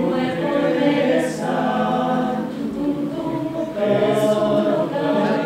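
A choir singing long held chords.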